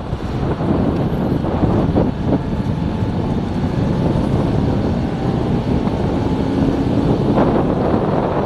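Motorcycle riding at speed: wind noise on the action camera's microphone mixed with engine and road noise.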